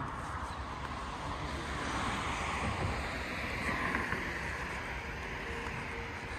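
Outdoor street ambience: a steady rushing noise that swells about two seconds in and eases off again a couple of seconds later.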